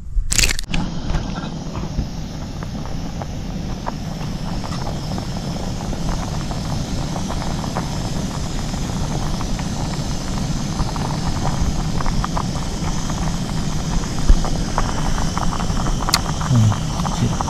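A vehicle running steadily: a low rumble under a constant hiss, with no break.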